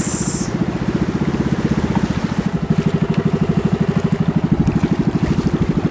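Small engine of an outrigger fishing boat (bangka) running steadily under way, a fast, even putter, with a brief hiss at the very start.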